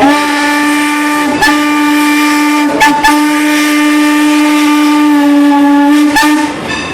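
Steam locomotive whistle blowing, a loud, steady, pitched blast sounded as a series of long blows with brief breaks, ending in a short final blow.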